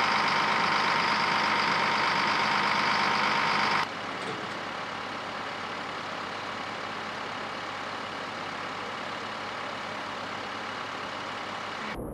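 Fire engine motor and pump running steadily, a loud whining drone with several steady tones, dropping to a quieter steady engine noise about four seconds in.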